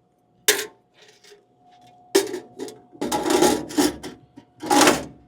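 Rustling and scraping of items being handled, in a short run of separate bursts with a busier stretch about three seconds in, over a faint steady hum.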